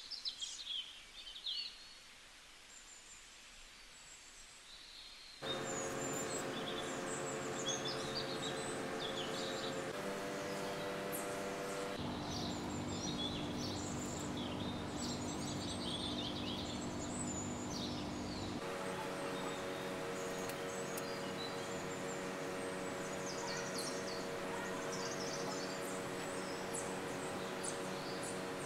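Birds chirping throughout. About five seconds in, a steady drone of held tones joins them and shifts in pitch a few times.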